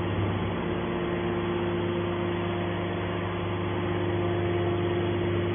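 Hydraulic metal scrap baler running: the electric motor and hydraulic pump hum and whine steadily as the press lid's cylinder moves.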